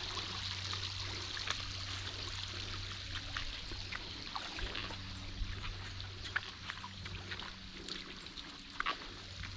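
Shallow creek water trickling and running over sandstone ledges, a steady hiss of flowing water with scattered small clicks and splashes. A steady low hum sits underneath.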